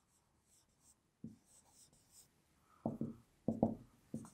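Pen writing by hand on a board: a few short strokes, one about a second in and a quick run of them in the last second and a half.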